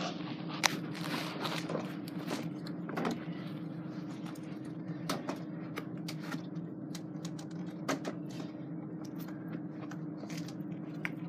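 Handling noise: scattered light clicks and knocks over a steady low hum.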